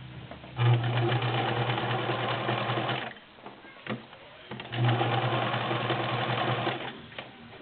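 All-metal Morse Apollo 6500 sewing machine stitching in two runs of about two and a half seconds each, with a short pause between. Its motor hums steadily under the rapid needle action, and the machine runs smoothly.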